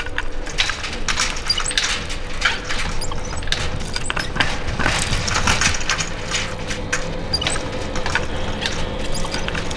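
Dense, irregular crackling and snapping over a low rumble, with a faint steady hum underneath.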